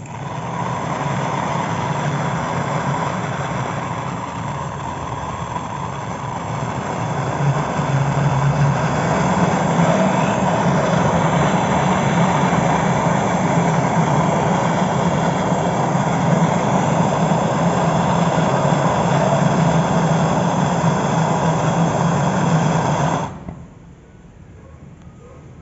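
Gas brazing torch flame running steadily while a refrigeration filter drier and capillary tube are joined, then shut off suddenly near the end.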